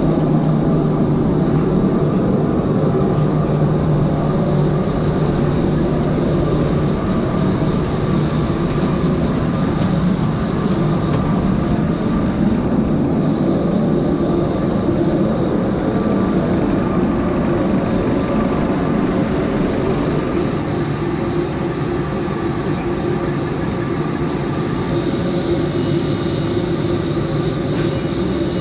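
Steady, loud vehicle rumble with a low hum, the sound changing in character about twenty seconds in.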